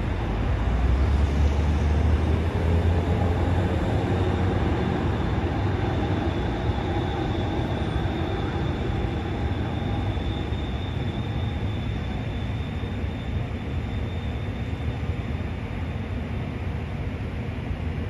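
City street traffic: a low rumble of a passing heavy vehicle, loudest in the first few seconds and easing off, over steady traffic noise with a faint high whine in the middle.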